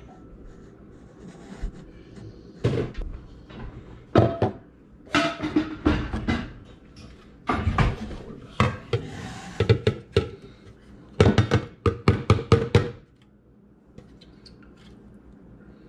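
Plastic juicer containers and a glass measuring cup knocking and clattering on a stone countertop as they are handled, in irregular clunks with a quick run of clatters near the end, over background music.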